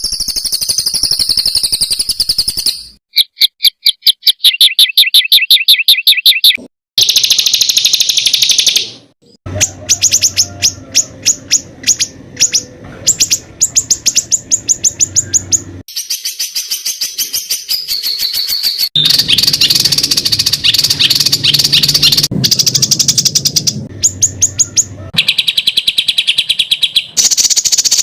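Songbird recordings spliced one after another, each a run of rapid, harsh, evenly repeated high-pitched notes (the 'tembakan kasar' bursts used to train contest birds). The song cuts abruptly to a different bird or phrase every few seconds.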